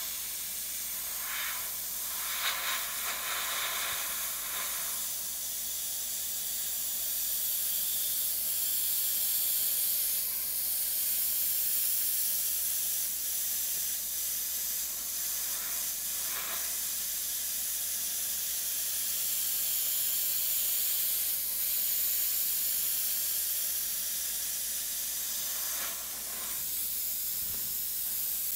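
Iwata HP-CS Eclipse gravity-feed airbrush spraying paint: a steady hiss of compressed air held on for long stretches.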